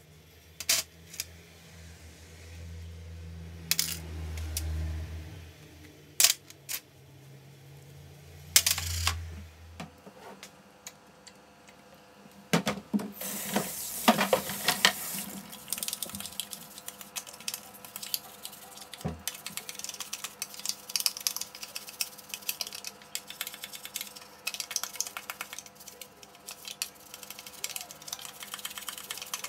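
A few sharp clinks of small metal drill parts in metal trays, then water running over the plastic housing halves of a Makita 6222D driver drill for a few seconds, then a long stretch of rapid scratchy brush scrubbing on the wet housing in soapy water.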